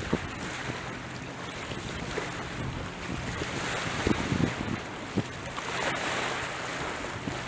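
Wind and small waves washing along the shore, swelling twice, with gusts buffeting the microphone in a few low thumps. Under it runs a faint steady low hum from a distant motorboat engine.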